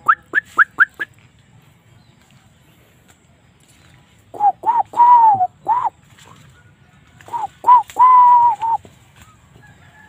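Wild fowl crowing twice, about three seconds apart: each crow is a few short notes and one long held note that drops at its end. A quick run of short rising chirps comes just before, in the first second.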